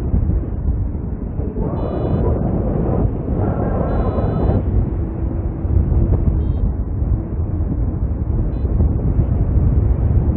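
Airflow buffeting the microphone in flight under a paraglider, with a variometer giving short electronic beeps a few times, some of them quick little runs of beeps.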